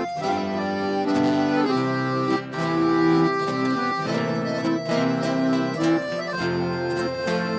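Instrumental introduction of a sertanejo song: an accordion plays held chords and a melody over a steady plucked-string accompaniment.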